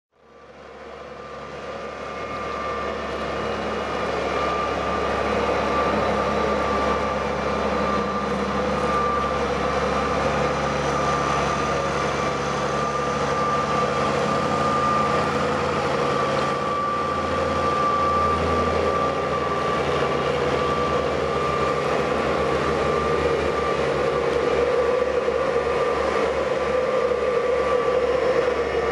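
A steady motor hum with a constant high whine, fading in over the first few seconds.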